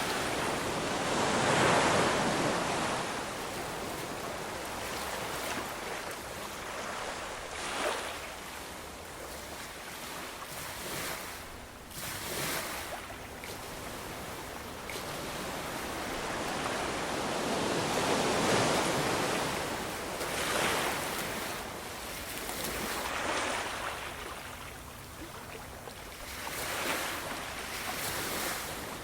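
Ocean waves breaking and washing up a shore, the rush swelling and falling in irregular surges every few seconds, with the biggest ones about two seconds in and past the middle.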